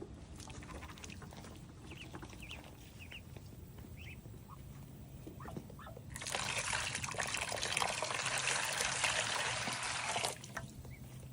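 Soft duckling peeps, then about six seconds in a loud burst of splashing, trickling water lasting about four seconds, stopping suddenly.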